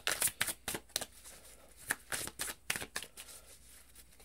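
A deck of tarot cards shuffled by hand: a quick run of crisp card snaps and flicks that thins out after about three seconds.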